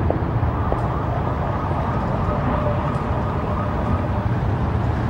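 Steady low rumble of city traffic, with no distinct events standing out.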